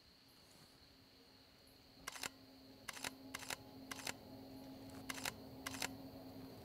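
A digital camera's shutter fires six times in quick succession starting about two seconds in, each shot a quick double click. A faint low steady drone rises underneath.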